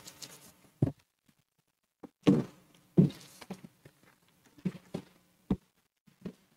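Several irregular soft thumps and knocks, picked up by the lectern microphone, as two readers handle and step away from a wooden lectern.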